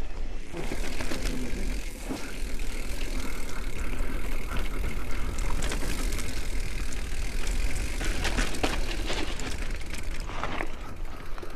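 Transition electric mountain bike riding a dirt trail: tyres rolling over the ground with frequent clattering rattles from the bike over bumps, and heavy wind rumble on the microphone.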